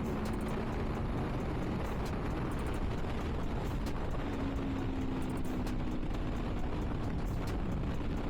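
Aprilia Tuono V4's 1077cc V4 engine running steadily at highway cruise in sixth gear, under heavy wind rush. The engine note comes through more clearly from about halfway.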